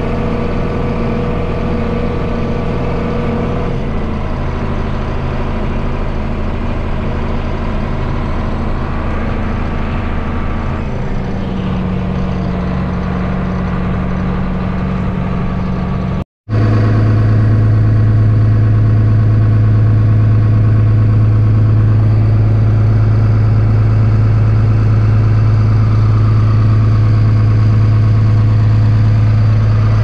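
Heavy farm diesel engines running steadily: a John Deere combine harvesting corn alongside a tractor, heard from the tractor's cab. About halfway through the sound breaks off for an instant, then comes back as a louder, steady engine drone with a strong low hum.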